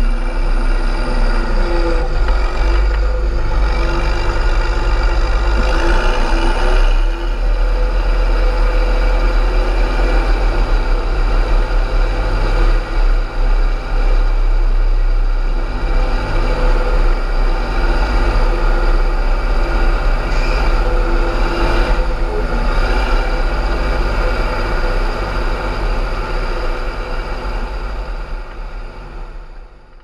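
Fendt 926 tractor's MAN diesel engine running hard, with a deep rumble and a faint high turbo whistle. Its pitch rises and falls a couple of times, and the sound fades out near the end.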